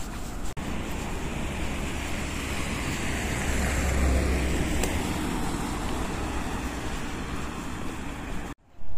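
Road traffic noise, with a vehicle passing about four seconds in. It cuts off suddenly near the end.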